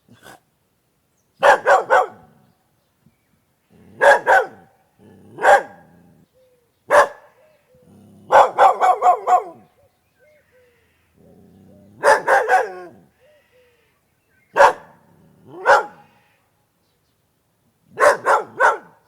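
A dog barking in irregular bursts: single barks and quick runs of two to five, separated by short pauses, with a faint low rumble before some bursts.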